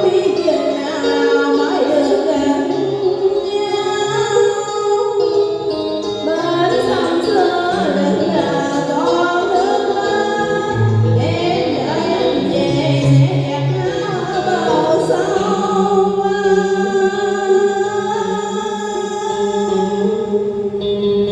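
Vietnamese tân cổ music: singing over instrumental accompaniment, with sliding, ornamented melody lines.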